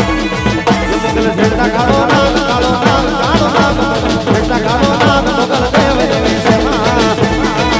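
Gujarati garba music: a steady, quick drum beat under a winding melody.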